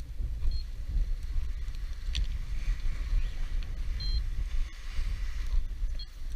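Strong wind buffeting the microphone: a loud, gusting low rumble that surges and eases unevenly, with a faint rushing hiss above it. A few brief, faint high-pitched tones cut through it.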